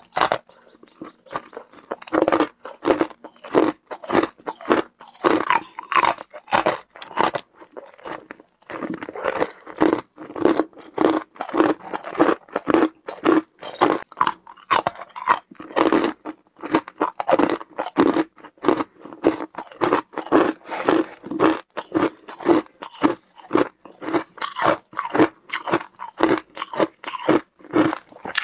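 Hard ice being bitten and chewed close to a clip-on microphone: a long run of sharp, crisp crunches, roughly two a second, as the chunks crack between the teeth, with short pauses about a second in and around eight seconds in.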